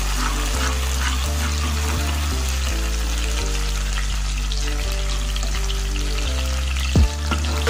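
Chopped onion and cumin seeds sizzling and crackling in hot oil in a steel pot, over background music of low sustained notes. There is a sharp knock near the end.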